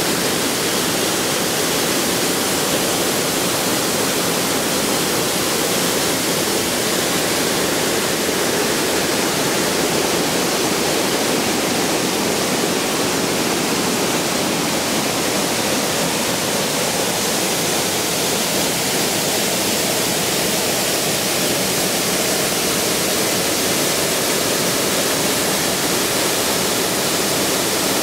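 Rushing water of a mountain stream, a steady, unbroken hiss.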